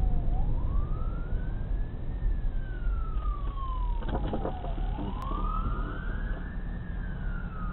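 Fire truck siren sounding a slow wail, one tone rising and falling in pitch about every four and a half seconds, over a steady low rumble of road and engine noise. A brief cluster of short sharp sounds about four seconds in.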